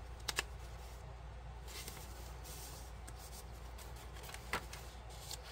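Paper rustling and sliding as a paper tag is handled and tucked into a pocket of a handmade paper journal, with a couple of light ticks shortly after the start and another about four and a half seconds in.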